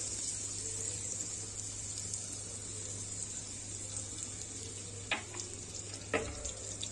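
Melted butter and olive oil sizzling steadily in a hot frying pan, with two short clicks about five and six seconds in.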